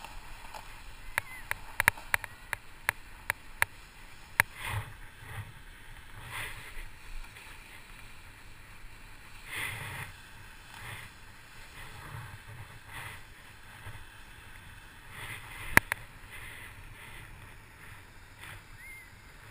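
Fat bike rolling over snow: a steady low rolling noise with soft swelling swooshes every second or so. A quick run of sharp clicks or knocks comes about a second in, and one more near the end.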